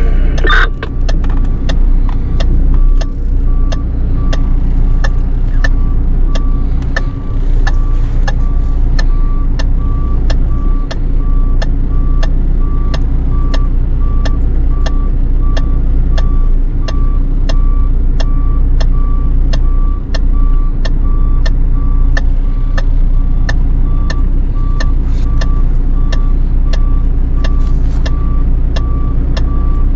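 Fire truck's engine running steadily, with a sharp tick and a short beep repeating about twice a second; the beep comes in about three seconds in.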